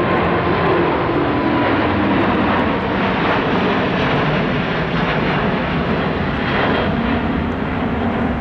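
Airliner engines running loud and steady, with a faint whine that falls slightly in the first second, and strong wind buffeting the microphone.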